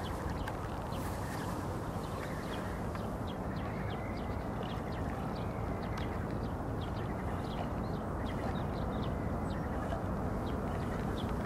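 Birds calling with frequent short chirps and calls over a steady low rumble.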